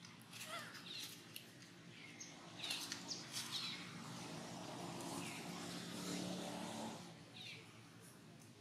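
Short, high chirping bird calls repeated every second or so, over a low steady rumble that swells in the middle and fades about seven seconds in.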